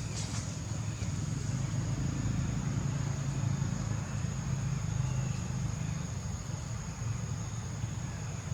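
Low rumble of a motor vehicle engine, swelling in the middle and then easing off as it passes, with a steady high-pitched whine above it.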